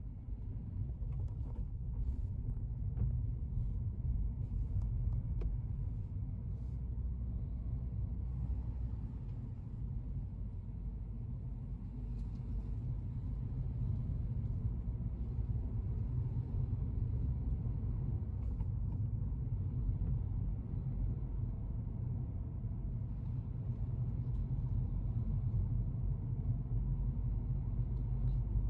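A car on the move, heard from inside the cabin: a steady low rumble of road and engine noise.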